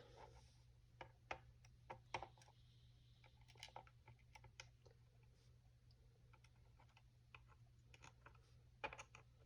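Faint, scattered small clicks of lock pins and a pick or tweezers being handled while a padlock core is taken apart, with a few louder clicks about a second in and near the end.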